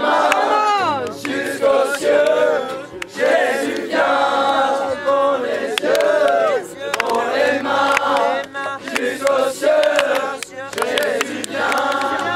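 A group of young male voices singing a Christian song together.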